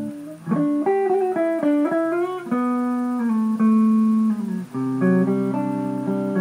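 ESP Mirage Custom electric guitar played clean and unaccompanied, loosely noodling. A chord is cut off about half a second in, followed by a quick run of single notes with bends, then held ringing notes and a chord change near the end. Recorded through a tablet's built-in microphone.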